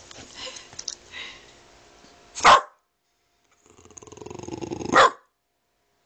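Boston Terrier barking: one sharp bark about two and a half seconds in, then a growl that builds louder and breaks into a second bark near the end.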